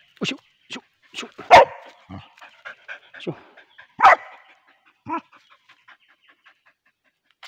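Hunting dog barking at a snake on the ground: a string of short, sharp barks over the first five seconds, the loudest about a second and a half in and again about four seconds in.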